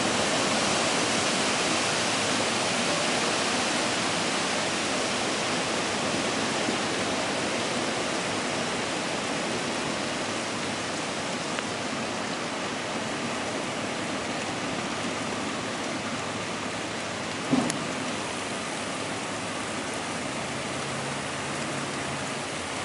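Steady rain falling on trees and ground, an even hiss, with little wind yet. A single sharp knock about three-quarters of the way through.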